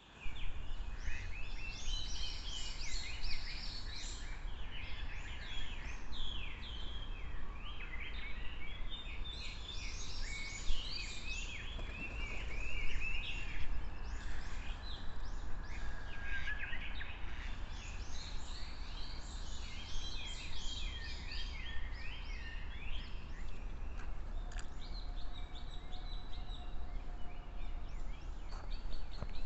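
A chorus of wild songbirds, with many overlapping short chirps and trilled phrases, over a steady low outdoor rumble.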